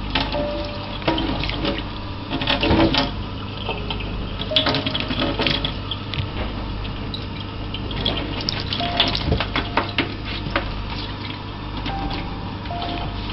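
Water running, with many short clicks and knocks throughout.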